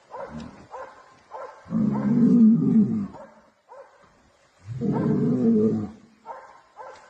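Two long, deep animal roars, about three seconds apart, with shorter, weaker calls between them.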